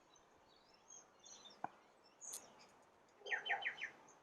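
Faint bird calls: scattered high chirps, then a quick run of four descending notes about three seconds in. A single soft click about one and a half seconds in.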